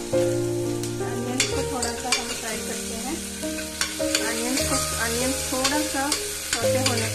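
Chopped onions sizzling in hot oil and ghee in a pressure cooker, stirred with a steel spoon that scrapes and clicks against the pot at irregular moments. Background music with held bass notes and a wavering melody plays underneath.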